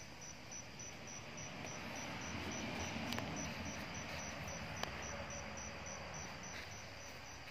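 A cricket chirping in a steady, even rhythm of short high pulses, over faint rustling from hands handling seedlings.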